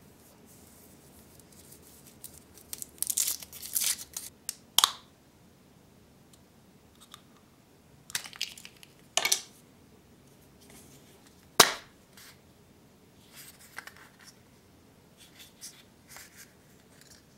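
Foil wrapper crinkling and tearing as it is peeled off a chocolate surprise egg, then the hollow milk-chocolate shell cracking apart. A single sharp snap follows as the plastic toy capsule is popped open, then soft rustles as its contents are handled.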